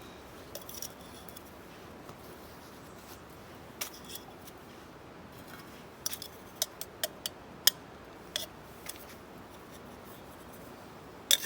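Scattered sharp clicks and snips of hands and utensils handling food, over a steady background hiss. The clicks bunch together in the second half, and the loudest come just before the end.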